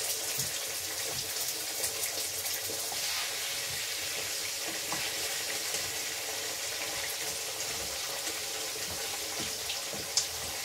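Cut vegetables sizzling as they fry in a frying pan, a steady hiss, with a few light knocks of a wooden spatula against the pan and a sharper one near the end.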